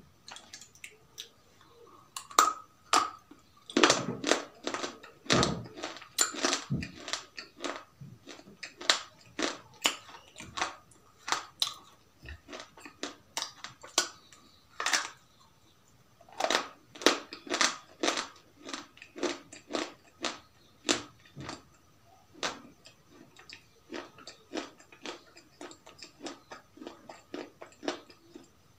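Crispy fried chicken being bitten and chewed: irregular crunches, several a second in two dense spells, sparser in between.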